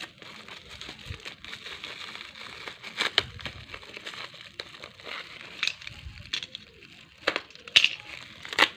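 Plastic packaging of a small parcel crinkling and rustling as it is handled and unwrapped, broken by several sharp clicks and taps.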